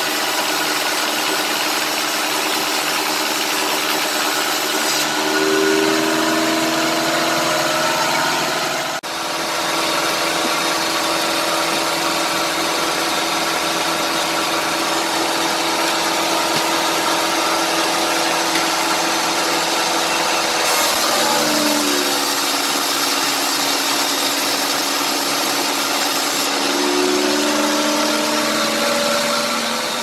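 Homemade band sawmill running at full speed, its blade cutting lengthwise through a sengon log: a steady mechanical whine and hum. Some tones shift in pitch in places, and the sound changes abruptly twice.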